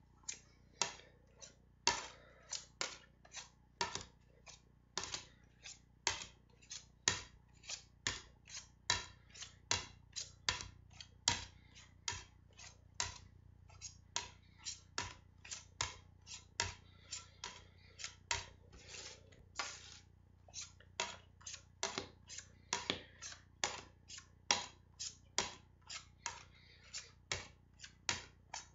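Plastic CDs clicking against one another as they are handled one by one on a hand-held stack: sharp clicks, about two a second, in a steady run.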